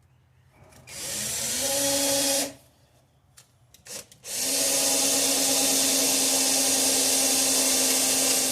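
Electric drill running in two goes: a short run that spins up about a second in and stops after about two seconds, then, after a few small clicks, a longer steady run from about four seconds on. It is drilling holes in the car's floor rail to pop-rivet a separated seam back together.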